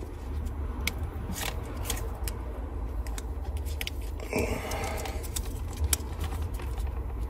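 Hot air gun blowing steadily to shrink heat-shrink tubing over a wire repair, with a few light clicks of handling.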